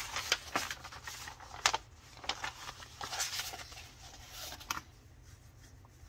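Plastic and paper packaging of a craft kit being handled: scattered crinkles and light taps, with a longer rustle about three seconds in, quieting near the end.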